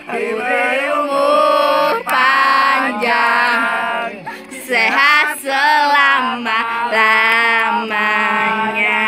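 A solo voice singing a slow birthday song in long, held notes.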